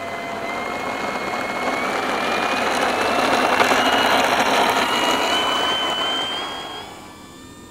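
Electric motor and propeller of an E-flite 1.2 m P-51D Mustang RC warbird at takeoff power: a whine that climbs slowly in pitch as the model accelerates down the runway. It is loudest about four seconds in, then drops away near the end.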